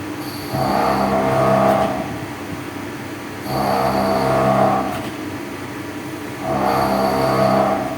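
A machine running with a steady hum, broken by a louder surge lasting just over a second that comes back regularly about every three seconds, three times here, each opening with a short high-pitched tone.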